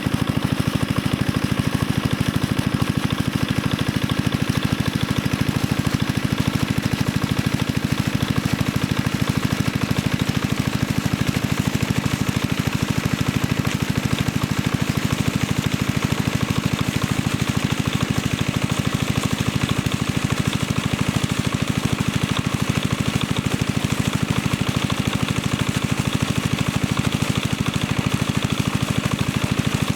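An engine running steadily at an even, rapid pulse, unchanging throughout.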